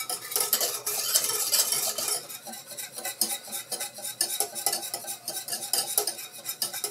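Wire whisk beating pastry cream in a stainless steel saucepan, its wires rattling and scraping against the pot's sides and bottom in quick, continuous strokes. The cream is whisked without stopping as it heats, to keep the bottom from burning.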